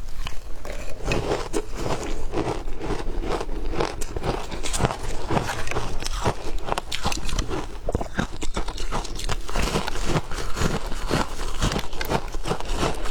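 Shaved ice being bitten and chewed: a rapid, irregular run of crisp crunches, several a second.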